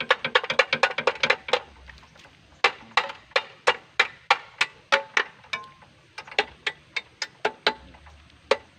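Sharp metal knocks on a hand tractor as its handlebar is worked onto its mount on the frame. They come in runs, at about three a second in the middle.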